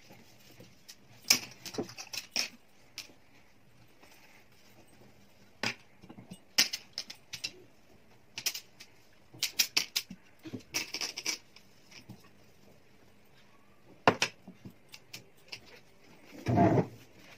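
A cloth wiping across a glass tabletop and being flapped out, heard as scattered light taps, ticks and rustles in short clusters, with a louder bump near the end.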